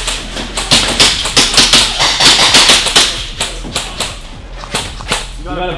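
A rapid, irregular run of sharp taps and knocks, densest and loudest about one to three seconds in.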